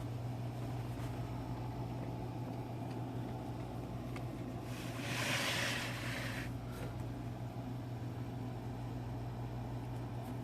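Steady low background hum with faint hiss, and a brief rustling noise about five seconds in.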